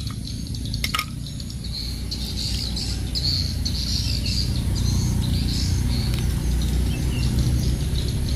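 Birds chirping over a steady low rumble, with one sharp click about a second in.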